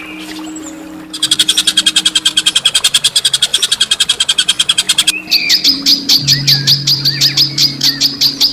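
A songbird giving a long, rapid run of repeated chattering notes starting about a second in, then switching to a second fast series of sharper, higher notes, over a steady low hum.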